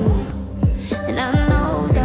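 Background pop music: a singer over an electronic beat with deep, falling kick-drum bass. The voice drops out briefly near the start and comes back about a second in while the beat carries on.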